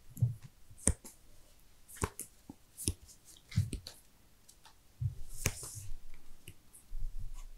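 Sleeved trading cards handled on a playmat: a string of sharp clicks and taps as cards are gathered up and set down, with a brief swish of a card sliding a little past the middle.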